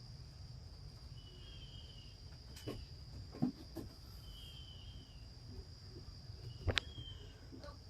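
Crickets chirring steadily at a high pitch, with a few faint short chirps and several soft clicks, the sharpest near the end.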